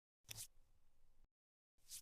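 Jigsaw puzzle pieces being handled on a table. A sharp tap comes about a quarter-second in, then faint handling noise, then dead silence, and another tap near the end.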